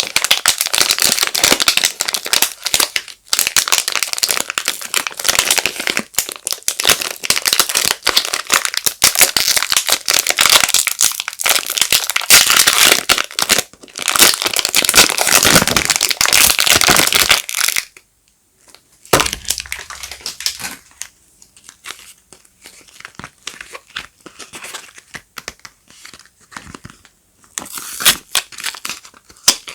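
Soap packaging being unwrapped by hand, with dense crinkling and rustling of the wrapper. About eighteen seconds in it stops briefly, then gives way to sparser, lighter rustles and taps.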